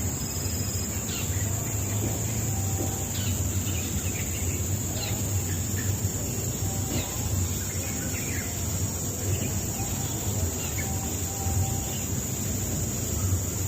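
Bird chirping: short, falling chirps repeated every second or so, over a steady high-pitched hiss and a low hum.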